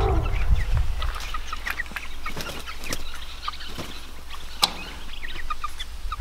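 A flock of young meat chickens peeping and clucking in short, scattered calls over a steady low rumble, with one sharp click about two-thirds of the way through.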